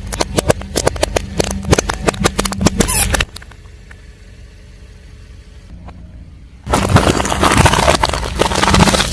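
Car tyre rolling over and crushing crunchy objects: a rapid run of sharp cracks and crackling for about three seconds, then a second dense spell of crunching from about two-thirds of the way in, over the car engine's low running hum.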